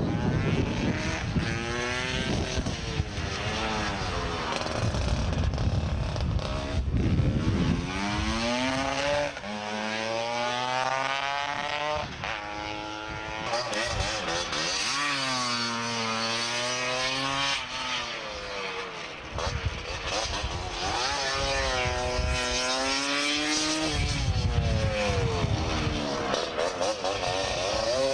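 Two-stroke racing scooter engines revving hard as scooters climb past one after another. The engine pitch rises and falls again and again as each one accelerates and eases off.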